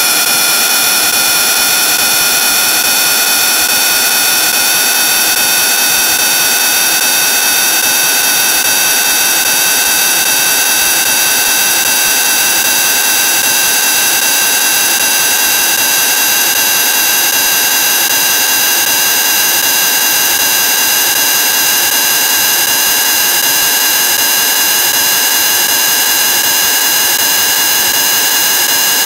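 Heavily effects-processed, distorted audio: a loud, harsh continuous drone. Its stack of tones creeps slowly up in pitch over a dense hiss, with no breaks.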